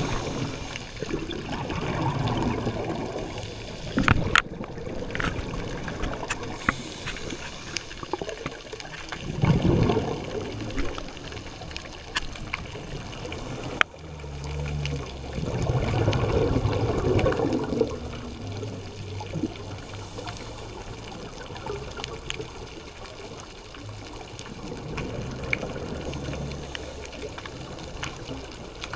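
Underwater sound picked up by a camera in a waterproof housing: water swishing and gurgling that swells and fades every few seconds. A couple of sharp clicks come through, one early on and one about halfway through.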